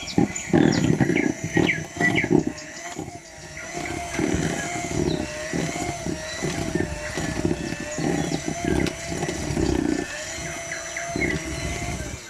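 Electric hand mixer beating oil into cake batter in a bowl: a steady, slightly wavering motor whine over the churning and knocking of the beaters, switched off near the end once the batter is blended.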